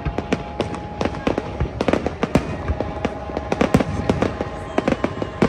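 Fireworks display going off in rapid, irregular bangs and crackles, several a second.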